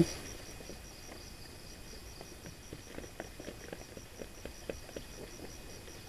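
Faint insect chirping: a high-pitched pulse repeating evenly about five times a second, with scattered light clicks and rustles.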